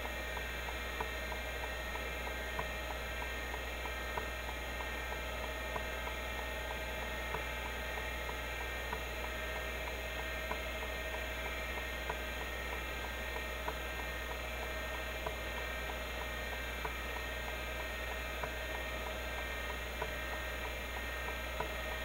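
Seagate ST-251-1 5.25-inch MFM hard drive spinning with a steady hum and whine while its stepper-motor head actuator ticks over and over, a louder tick about every one and a half seconds with fainter ticks between, as the drive seeks under a Speedsys benchmark.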